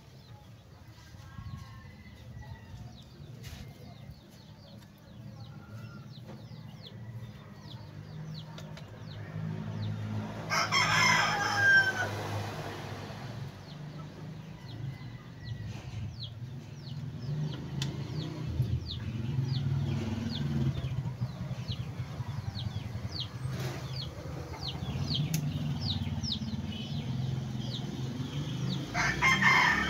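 Rooster crowing twice, once about ten seconds in and again near the end, over a steady low rumble and many small high chirps.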